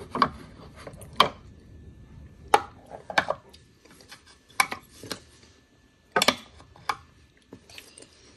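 Wooden toy food pieces clacking against each other and against wooden crates as a child's hand rummages through them: about eight light knocks, spread out, with quiet rustling between.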